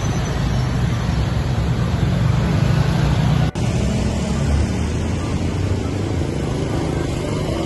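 Congested road traffic: car and motorcycle engines running close by in a slow-moving queue. About three and a half seconds in it cuts suddenly to a thinner, more distant traffic hum.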